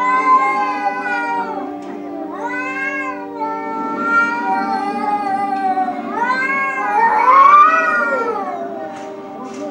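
Cats yowling: about five long, drawn-out meows that rise and fall in pitch, the loudest near the end. Steady background music plays underneath.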